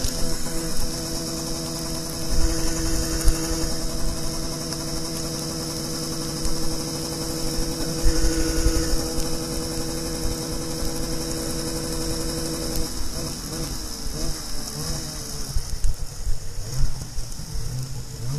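Snowmobile engine idling with a steady hum over a constant high hiss; about thirteen seconds in the hum turns uneven and wavers in pitch.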